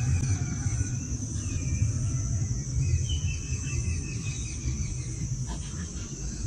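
Open-field ambience: wind rumbling on the microphone, a steady high insect drone, and a few short bird calls.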